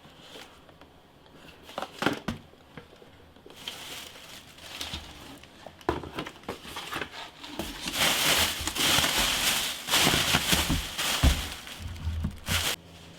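Plastic packaging crinkling and rustling as a motherboard is unpacked, with scattered handling clicks; the crinkling gets louder and denser about eight seconds in and stops shortly before the end.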